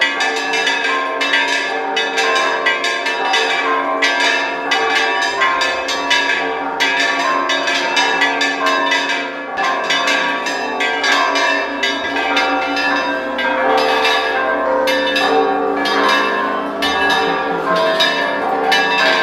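Church bells ringing in a fast, unbroken peal, several strikes a second with the tones ringing on over one another.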